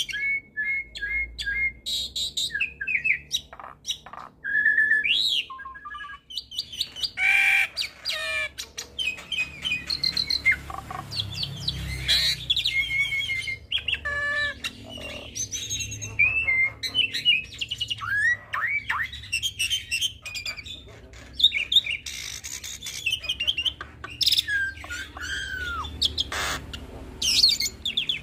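Hybrid starling (Nias hill myna × Asian pied starling cross) singing a varied, unbroken run of whistles, quick chirps, gliding notes and harsh squawks, full of mixed-in phrases. A faint low hum runs beneath.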